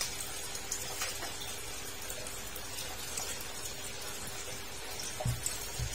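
Steady background of running, trickling water with a faint constant hum, and two soft knocks near the end.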